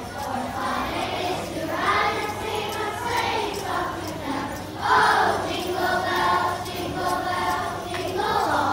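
A class of young children singing a song together as a choir, in held notes.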